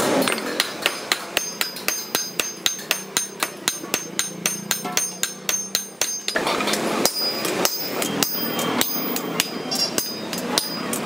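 Blacksmith's hand hammer and sledgehammer striking a red-hot axe head on a steel anvil in a quick steady rhythm, about three blows a second, each with a short metallic ring. After about six seconds the blows turn less regular over a louder background hiss.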